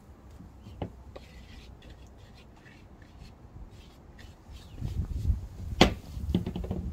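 Hands kneading soft dough on a wooden board: quiet rubbing and dull pressing thumps. Near the end comes one sharp wooden knock, a wooden bowl being set down, followed by a few lighter knocks.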